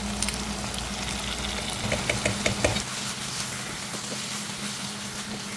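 Chicken curry in a pan sizzling steadily, with a few sharp clicks of a spoon against the pan about two seconds in. A steady low hum sits underneath.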